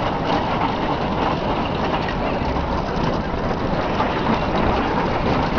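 Bobsled roller coaster cars running fast down their curved trough, heard from on board: a steady, loud rumble and rattle of the wheels on the track.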